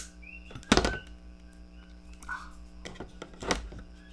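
Handling noise from a micro FPV drone and a lighter as heat-shrink tubing is shrunk over the antenna: a few sharp clicks and knocks, the loudest just under a second in, over a low steady hum.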